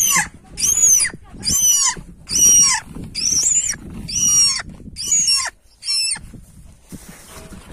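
A bird giving a run of about eight high-pitched squealing calls, a little more than one a second, each rising and then falling in pitch. The calls stop about six seconds in.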